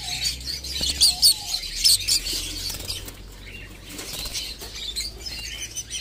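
African lovebirds chirping and chattering, with a held lovebird's wings flapping, loudest with a few sharp bursts about one to two seconds in.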